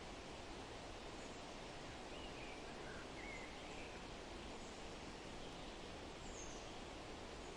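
Steady forest ambience, an even hiss like wind in leaves, with a few faint, brief bird chirps about two to three seconds in and one higher chirp near the end.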